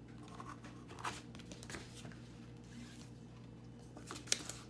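Faint handling of thin paperback picture books on a wooden book stand: one book closed and lifted away and another picked up, with soft paper rustles and a sharp tap about four seconds in. A faint steady hum runs underneath.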